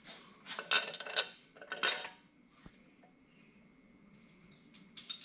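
Steel cylinder head bolts clinking and rattling against each other as they are picked out of a pile: a cluster of sharp metallic clinks in the first two seconds, then a few more near the end.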